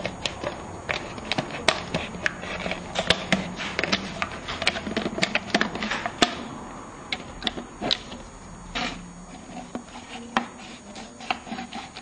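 Scissors cutting through a thin plastic PET cola bottle: many irregular sharp snips and crackles of the plastic as the blades close.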